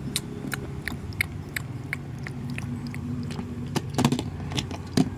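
Chewing and biting on a toy T-Rex foot: irregular sharp clicks and small knocks, coming thicker and louder near the end, over a steady low hum.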